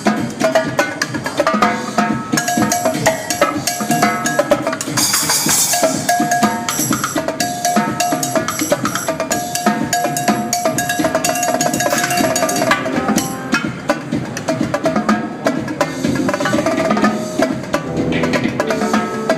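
Live drumming on a Mapex drum kit with Paiste cymbals, played in quick, dense strokes over electronic dance music with a steady melodic line.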